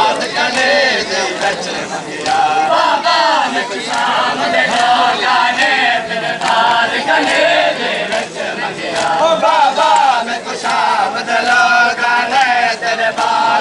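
A crowd of men chanting a noha, a Shia mourning lament, together. Sharp slaps of hands striking chests (matam) recur throughout, keeping time with the chant.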